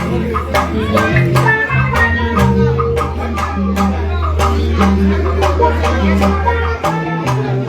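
Music with a steady percussion beat, a low held bass note and guitar, plus a shaker; the bass drops out shortly before the end.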